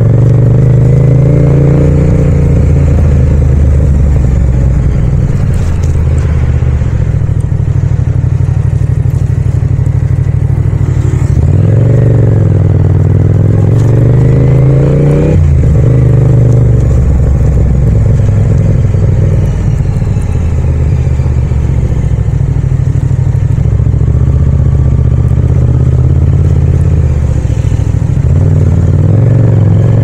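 Yamaha MT-07 (FZ-07) 689 cc crossplane parallel-twin engine and exhaust under way in city riding. The revs climb for a few seconds, then drop sharply about halfway through, and rise again near the end.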